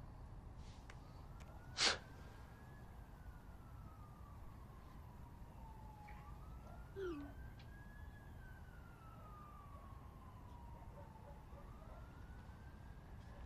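A faint siren wailing, its pitch slowly rising and falling every five to six seconds over a low steady hum. A single sharp click about two seconds in is the loudest sound.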